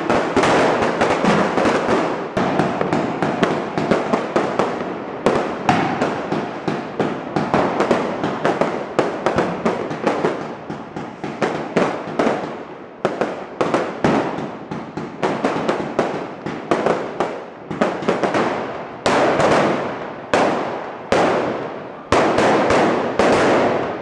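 Street fireworks and firecrackers going off continuously: dense, overlapping bangs and crackling with no let-up.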